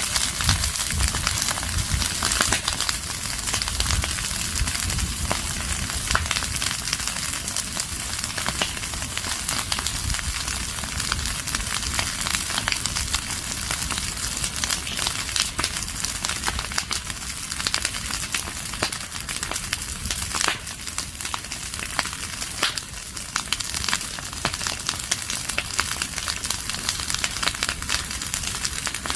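Fire of burning leaves and branches crackling steadily, with many small sharp snaps over a low rumble.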